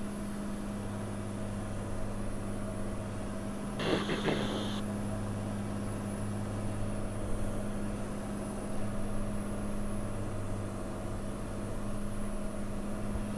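Cirrus SR20's piston engine and propeller droning steadily inside the cockpit at reduced power on final approach. A brief snatch of voice comes about four seconds in.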